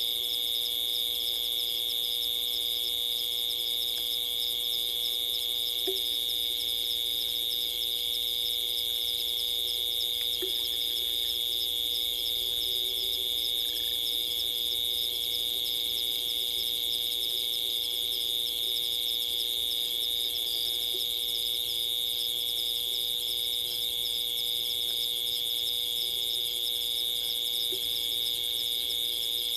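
Night insect chorus: crickets trilling continuously, a steady high-pitched drone with a rapid pulsing chirp layered above it, over a faint steady low hum.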